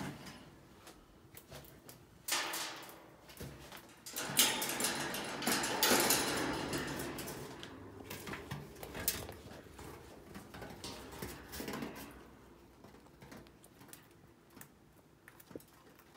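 Rustling, scraping and clattering around a wire chinchilla cage, with scattered clicks. The noise comes in bursts and is loudest from about four to eight seconds in.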